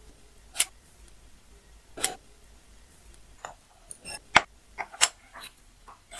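Irregular sharp taps and clicks of a small beech block, a steel ruler and a pen being handled and set down on a stone worktop. There are a few single taps at first, then a quicker cluster in the second half as the block is turned and the ruler repositioned.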